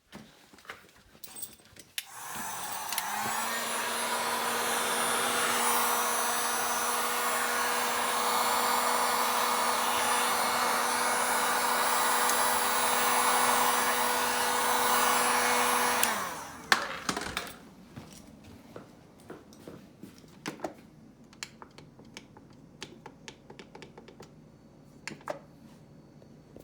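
Heat gun blowing steadily, a loud rush of air with a motor hum, switched on about two seconds in and cutting off after about fourteen seconds. It is warming the capacitors on a refrigerator control board that are suspected to be defective. Scattered small clicks and taps follow.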